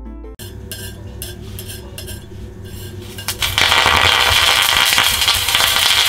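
A mixture of iodine pentoxide and lithium borohydride powder being stirred with a rod, with small scraping clicks; a little over three seconds in it ignites into a loud hissing, crackling burn.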